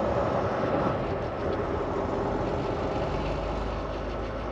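Steady engine and road noise heard inside the cab of a Volvo semi truck as it drives.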